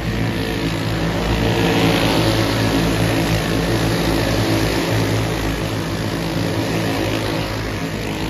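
Several dirt-track racing karts' engines running as the pack goes by on the dirt oval, getting louder about two seconds in and easing off slightly near the end.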